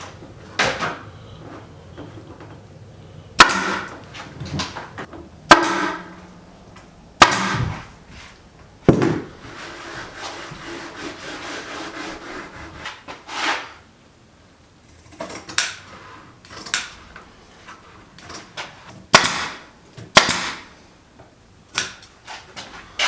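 A series of sharp clanks and knocks from tools and metal parts being handled and set down, several ringing briefly, with a few seconds of steady hiss about ten seconds in.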